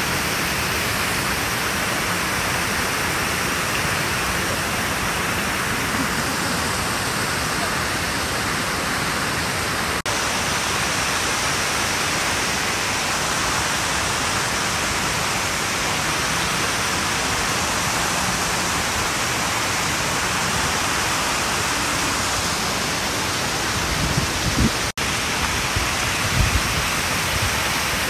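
Shiraito Falls, a wide curtain of many thin waterfalls, giving a steady rush of falling water. A few low thumps come near the end, and the sound drops out for an instant twice.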